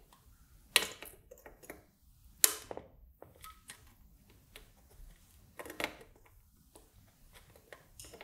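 Flush side cutters snipping excess capacitor leads off a soldered circuit board: three sharp snaps, about a second in, about two and a half seconds in and near six seconds, with fainter clicks and ticks between.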